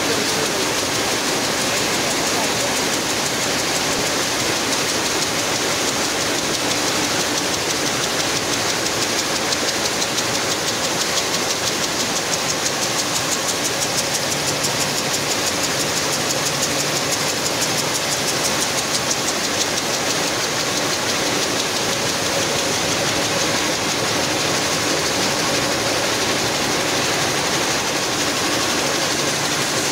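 Picanol GTX rapier weaving looms, several running at once: a loud, steady mechanical clatter with a rapid, even beat.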